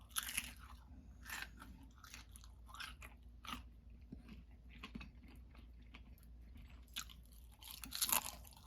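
Chewing crisp slices of baked potato with the mouth open: irregular crunches, with a louder run of them near the end.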